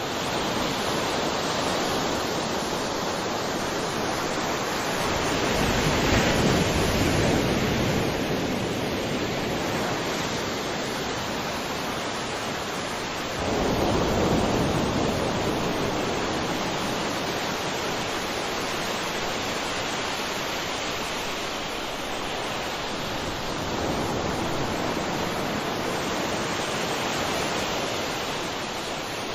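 Ocean surf: a steady wash of waves that swells three times as waves break, the sharpest rise coming about halfway through.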